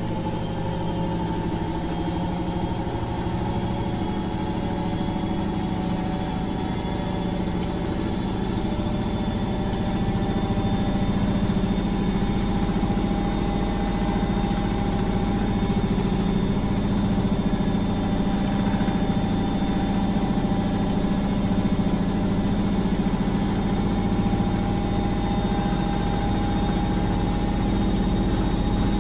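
Washing machine running, a steady motor and drum hum with a thin whine above it that rises slowly in pitch; it grows a little louder about a third of the way in.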